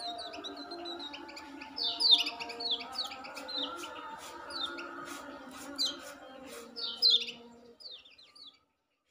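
Young caged kecial songbird, just learning to sing, giving rapid runs of high, quick downward-slurred chirps in repeated bursts.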